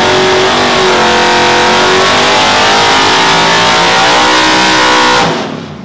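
Naturally aspirated 327-cubic-inch Ford Coyote DOHC V8 on an engine dyno, running loud at wide-open throttle under full load in a power pull to about 7,800 rpm. About five seconds in the throttle closes and the sound falls away quickly.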